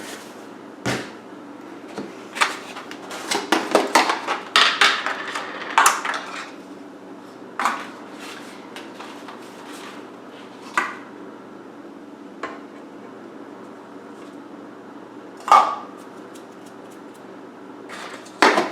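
Measuring cup and kitchen utensils clinking and knocking against a pan while sugar is scooped and tipped in: a quick run of knocks in the first few seconds, then single knocks every couple of seconds.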